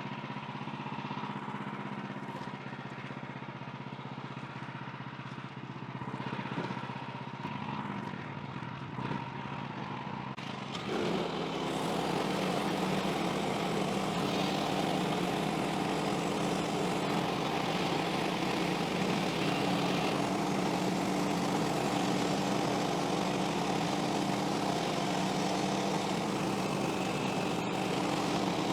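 Small gasoline engine of a Woodland Mills HM130MAX portable band sawmill running steadily. About eleven seconds in it gets louder and fuller, then holds at that higher pitch and level.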